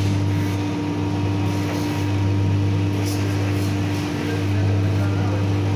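Steady low machine hum that holds two constant pitches without a break, with faint paper rustling about three seconds in.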